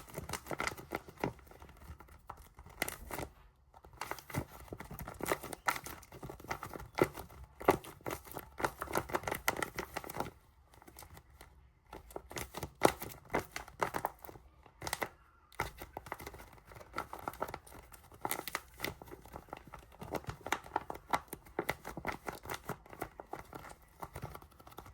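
Tape-covered paper crinkling and crackling as a paper squishy is handled, in runs of rapid crackles with short pauses about ten and fifteen seconds in.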